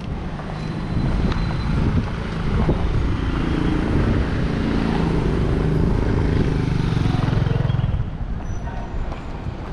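A car driving past close by, its engine hum building a few seconds in and loudest for a few seconds before easing near the end, over general street traffic noise.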